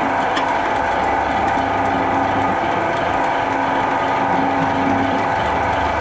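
Twin-shaft shredder running with its interlocking cutter discs turning empty, a steady mechanical whine over a low hum.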